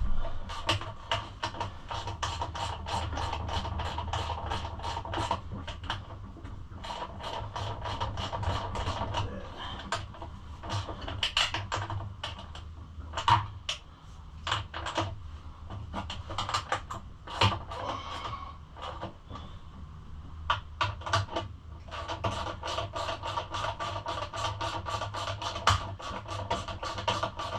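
Ratchet wrench clicking in quick runs of clicks, tightening nuts down.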